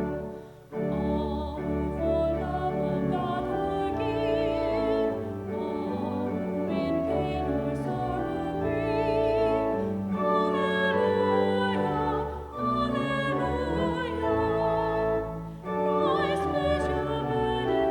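Classical-style singing with strong vibrato over sustained instrumental accompaniment, the kind of sacred music performed in a church service. The music breaks briefly near the start and twice toward the end, between phrases.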